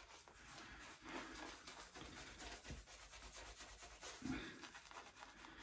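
Faint rubbing and scratching of a shaving brush working lather over the skin, with a brief louder breathy sound about four seconds in.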